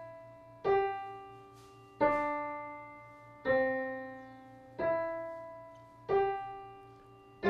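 Piano played one note at a time, slowly and evenly: five new notes, each struck about every second and a half and left to ring and fade. It is a simple beginner note-reading exercise being played through.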